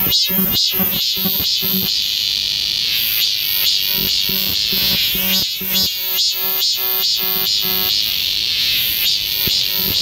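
Cicadas singing in chorus: a loud, steady, high-pitched drone, overlaid by a pulsing call that repeats about three times a second in phrases of a few seconds.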